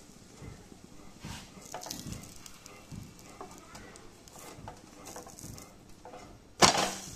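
Silicone spatula scraping and lifting a gram-flour paratha in a non-stick frying pan, with faint sizzling and small knocks. About six and a half seconds in, a sudden loud burst of sizzling that dies away over half a second as the paratha is turned over onto the hot pan.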